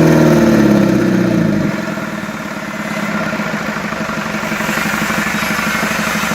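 Mitsubishi 4D32 four-cylinder diesel engine coming down from high revs over the first couple of seconds, then idling steadily.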